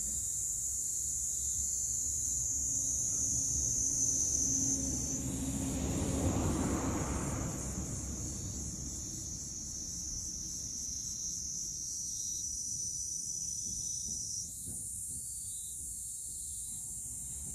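Outdoor ambience: a steady high-pitched insect-like buzz, with a distant engine that swells up and fades away about six seconds in.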